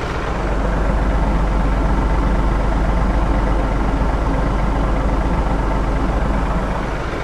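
Tractor engine running, its low drone getting louder about half a second in and easing back near the end.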